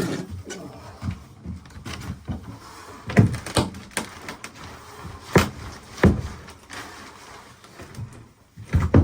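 Irregular knocks and thuds, the loudest about a third of the way in, past the middle and at the very end, with scraping and rubbing between them: hand work on the boat's wooden cabin floor in a small, enclosed cabin.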